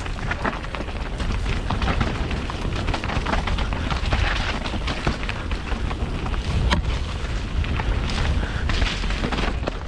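Cube Stereo 170 Race 29er mountain bike being ridden down a trail: wind buffets the microphone with a heavy rumble, and the tyres and frame rattle over rough ground in many quick knocks and clicks.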